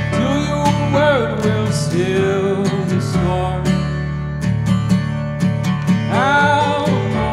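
Live worship song: a strummed acoustic guitar in a steady rhythm over sustained electronic keyboard notes, with a man singing a line about a second in and another near the end.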